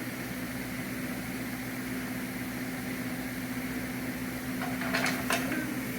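Steady machine hum at one constant pitch, with a few short sharp clicks about five seconds in.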